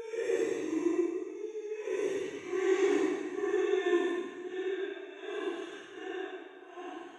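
Horror sound effect of a ghostly woman's wailing moan: a wavering held pitch with breathy swells, fading toward the end.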